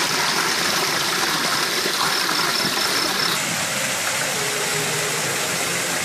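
Steady rushing and splashing of water pouring down the tiers of an artificial stone waterfall into its pool.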